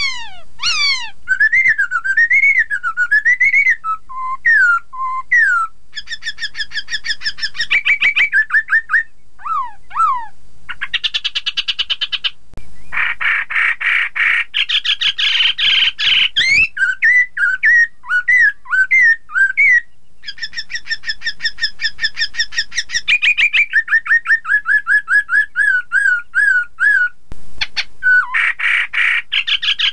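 Black-throated laughingthrush singing a varied song: clear whistled notes that glide up and down, quick runs of repeated notes, and louder harsh chattering passages about halfway through and again near the end.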